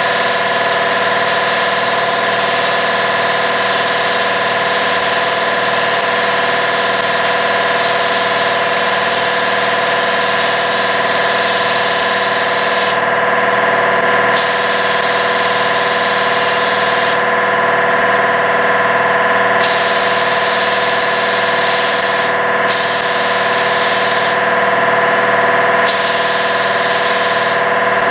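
Gravity-feed spray gun hissing as it lays a light first coat of paint in passes. In the second half the hiss stops and restarts several times as the trigger is released between passes. Under it runs a steady machine hum with several held tones.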